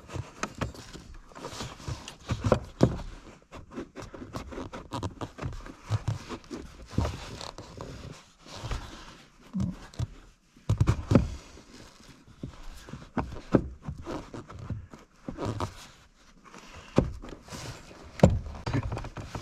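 Irregular clicks, knocks and scraping of a Numeric Racing aftermarket pedal part being pressed and slid into place by hand on a car's pedal assembly.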